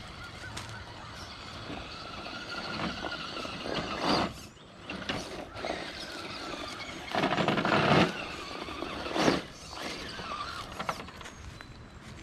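Scale RC crawler's electric motor and geartrain whining as the truck crawls over dirt and rock, with louder bursts near 4 s and between about 7 and 8 s.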